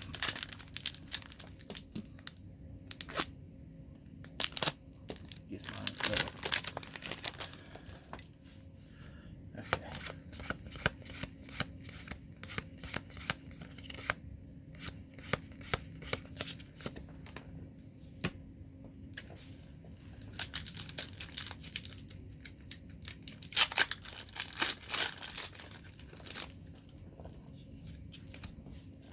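Magic: The Gathering booster pack being torn open, its foil wrapper crinkling, with cards flicked and shuffled by hand as they are sorted: many short clicks and snaps, with longer crinkling and tearing stretches about six seconds in and again around twenty seconds in.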